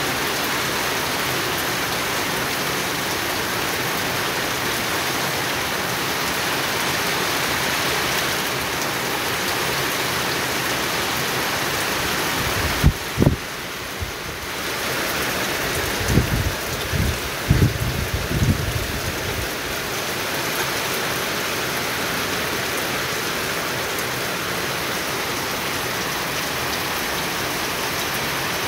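Steady rain falling on stone paving and a small pond. A few low thumps come about halfway through.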